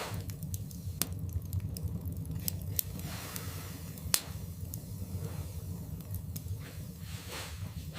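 Wood fire burning in a fireplace: a steady low rumble with frequent sharp crackles and pops, the loudest pop about four seconds in.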